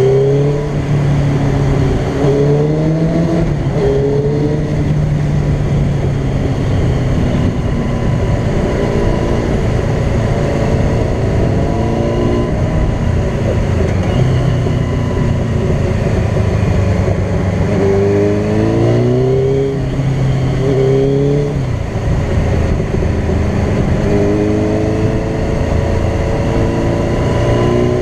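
Sport bike engine running at highway speed, its pitch rising and falling several times as the throttle is worked, over a steady rush of wind and road noise.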